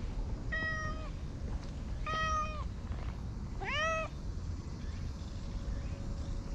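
A cream-and-white stray cat meowing three times, short calls about a second and a half apart, the last one rising and then falling in pitch, over a steady low rumble.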